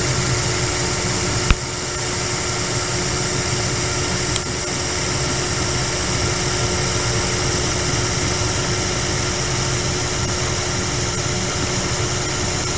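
Metal lathe taking its final cutting pass on a pin, spindle and chuck spinning: a steady, loud machine whir and hiss, with one sharp click about a second and a half in.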